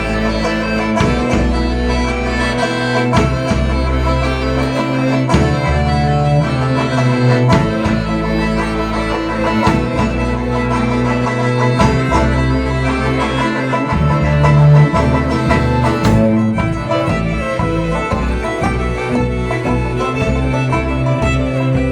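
A band playing live through its sound check: string instruments over a bass line that holds each low note for a second or two.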